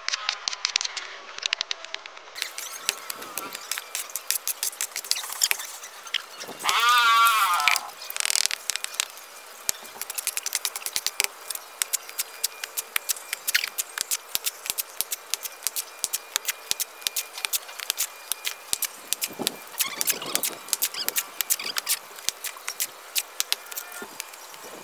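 Steel hoe and shovel scraping and chopping through wet cement mortar on a concrete floor, giving many short scrapes and clicks. About seven seconds in, a loud wavering animal call lasts about a second.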